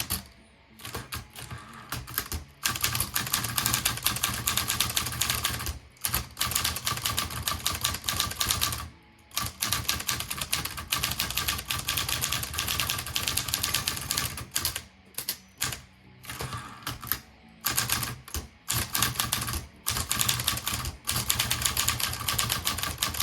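Olivetti Lettera 22 manual portable typewriter being typed on, its typebars striking in fast, continuous runs of clacks broken by a few brief pauses.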